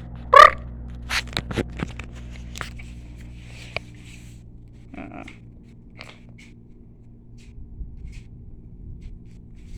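Tiny puppy play-biting and being handled right at the microphone: scattered crunching, scraping and clicking, with one loud, short, high-pitched cry about half a second in and a softer one about five seconds in.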